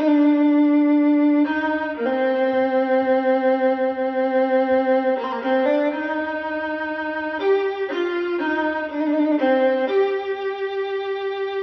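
Slow violin music with long held bowed notes, played back through a Technics SC-C70 MK2 compact all-in-one music system during a speaker sound test.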